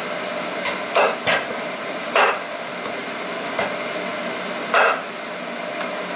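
Chinese cleaver chopping through a cooked chicken into a wooden chopping board: several sharp chops at uneven intervals, two of them louder than the rest, over a steady background hum.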